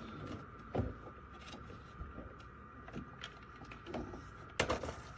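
Scattered light knocks and clicks of handling, with a sharper clatter near the end, over a faint steady high-pitched hum.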